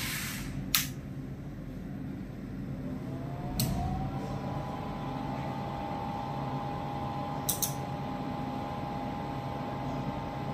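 Clicks near the start, then the cooling fan of an MX LP801 power amplifier spins up as the amp powers on, its whine rising and then holding steady. A thump and click follow, and about two-thirds through a sharp double click as the amplifier comes out of protection.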